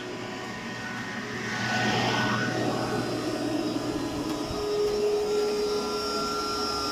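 Rectifier cooling fans in a ZTE telecom power cabinet whirring steadily. The whir grows louder about two seconds in, and steady whining tones join it about five seconds in.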